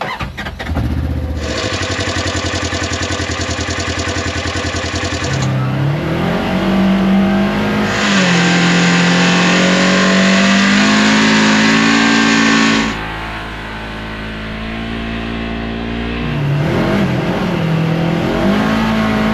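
Polaris RZR XP 1000 side-by-side with its stock exhaust, its twin-cylinder engine under throttle. It runs steadily, then revs up and holds high, lets off sharply about two-thirds of the way in, and pulls again near the end.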